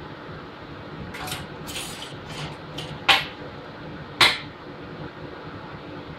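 Metal parts and tools being handled on a welding bench: a few brief scrapes and rattles, then two sharp clanks about a second apart, over a steady background hum.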